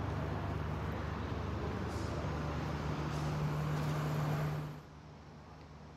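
Steady low mechanical drone with a constant hum, like machinery or an engine running. It drops sharply to a much quieter level near the end.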